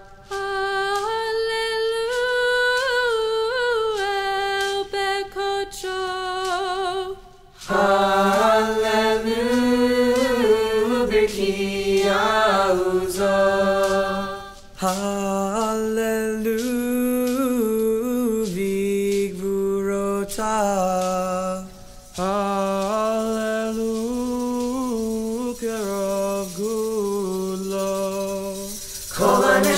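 Background music: unaccompanied singing of a Hebrew song of praise, sung in phrases separated by short pauses about 7, 14 and 22 seconds in.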